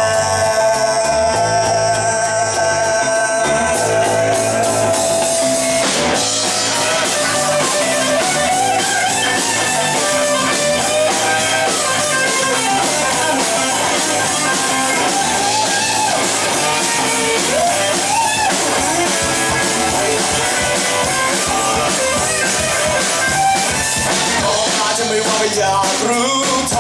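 A live rock band playing with electric guitar, bass and drum kit. A long held note in the first few seconds breaks off about six seconds in, followed by a melody line that bends up and down in pitch.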